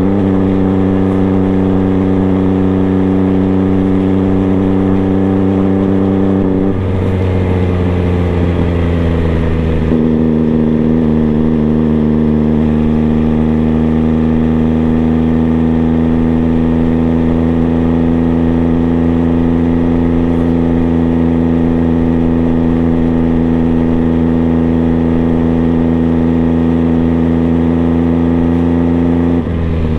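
MV Agusta Brutale 800 Dragster RR's three-cylinder engine through a QD aftermarket exhaust, running at steady, low revs while riding slowly. The engine note changes about seven seconds in, settles again at about ten seconds, and drops near the end.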